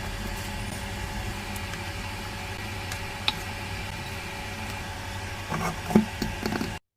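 Steady low hiss of fried rice cooking in a pan over low heat, with a faint steady hum underneath. A single sharp click about three seconds in and a few brief low sounds near the end, then the audio cuts to silence just before the end.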